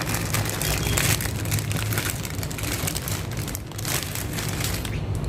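Packaging crinkling and rustling, with irregular small clicks and knocks, as bird toys are unwrapped and handled, over a steady low hum.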